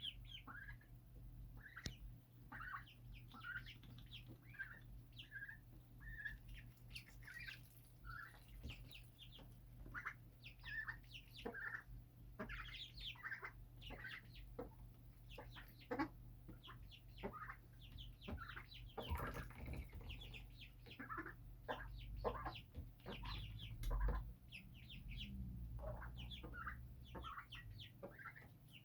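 A flock of small kept birds chirping, many short overlapping calls and chirps in quick succession, over a steady low hum.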